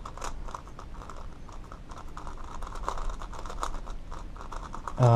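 Plastic Megaminx puzzle (Qiyi X-Man Galaxy V2) being turned by hand: a quick, irregular run of light clicking and clacking as its faces rotate. It is smooth rather than sandy, fresh out of the box.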